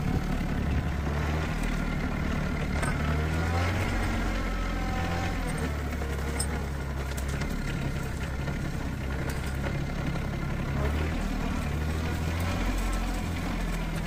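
Rural King RK25 compact diesel tractor's engine running steadily under the operator, with a brief wavering whine a few seconds in.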